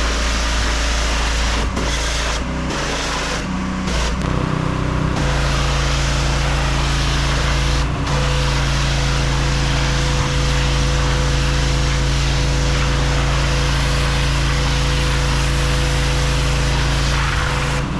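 Pressure washer running, its engine holding a steady tone under the hiss of the high-pressure spray hitting a wall. During the first few seconds the spray cuts out briefly several times and the engine note shifts; after that both run steadily.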